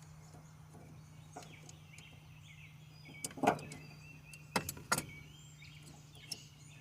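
A few sharp clicks and taps of tools and parts being handled during work on a truck's starter solenoid: two about three seconds in, two more around five seconds, and a small one near the end. Under them runs a faint steady hum.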